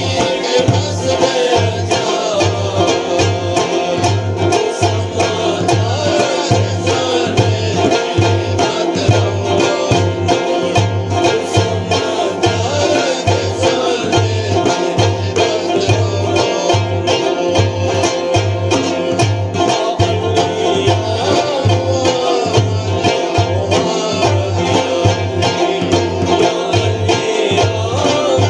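Burushaski ginan performed live: a plucked string instrument over a steady beat, with singing.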